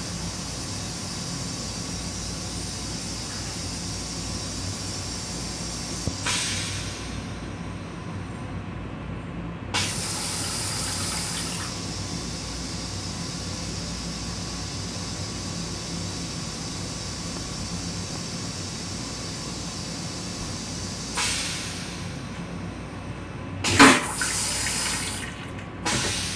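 M7 railcar toilet flushing: several short bursts of water spraying into the stainless-steel bowl, the longest lasting about two seconds, the loudest near the end. A steady low rumble from the railcar runs underneath.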